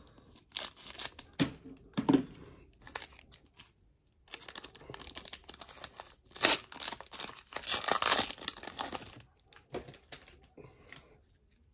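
Foil wrapper of an Upper Deck Metal Universe hockey card pack being torn open and crinkled in irregular bursts, loudest from about six to nine seconds in.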